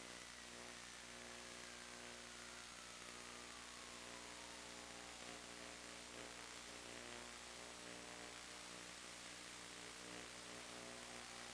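Low, steady electrical hum with hiss, picked up on the FPV video link's audio channel. A faint whistle falls slowly in pitch over the first half and starts to rise again near the end.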